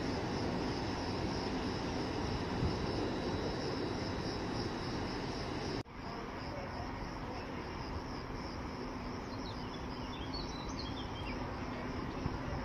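Steady, pulsing high chirring of insects over a low background rumble, broken by a sudden cut about halfway through. A few short bird chirps come near the end.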